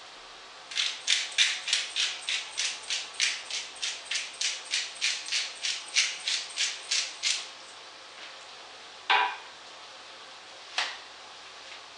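A hand pepper mill being twisted over a pot, grinding in regular crunchy clicks about three times a second for some six and a half seconds. Two single knocks follow, one about 9 s in and one near 11 s.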